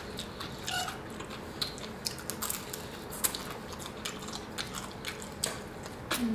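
People chewing and biting into crispy fried chicken, with irregular crunches and small clicks.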